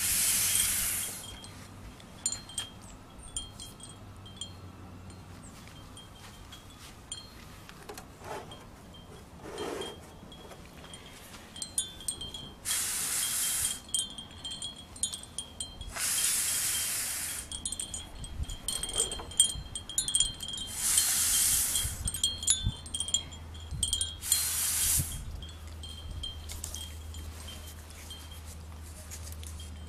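Wind chimes ringing lightly on and off. Several short hisses, each a second or so long, stand out louder about five times.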